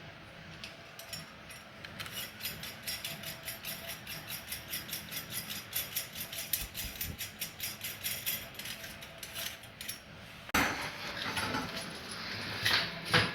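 Rapid, even mechanical clicking, about five clicks a second, as parts of a washing machine are worked on during repair, then louder metal clattering in the last few seconds.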